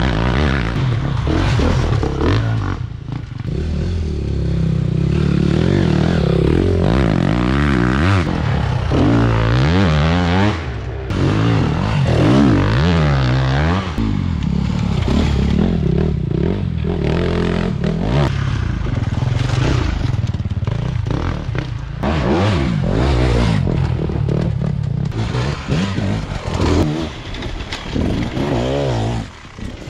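Enduro motorcycles revving hard through a dirt forest trail, engine pitch rising and falling with each burst of throttle as several riders pass in turn, with the rear tyres spraying dirt and stones.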